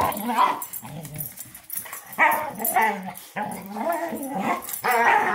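German shorthaired pointer making play vocalizations while wrestling another dog: a string of wavering, whining calls that break off briefly every second or so.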